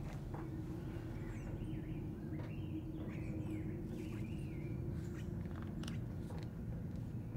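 Steady low background rumble and hum, with a few faint high calls that rise and fall in pitch around the middle and scattered light clicks.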